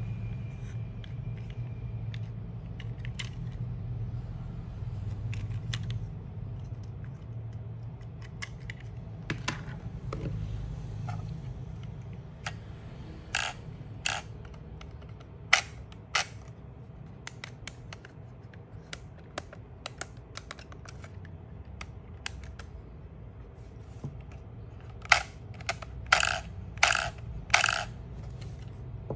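Plastic clicks and taps from handling a small RC drift car and its pistol-grip transmitter. The clicks come scattered at first, then as a group about halfway through and a quick cluster of sharper clicks near the end, over a steady low hum.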